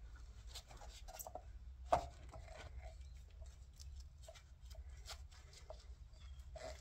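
Faint clicks, knocks and scrapes of a new coil spring and top mount being forced onto a car's rear shock absorber by hand, with one sharper knock about two seconds in, over a low steady hum.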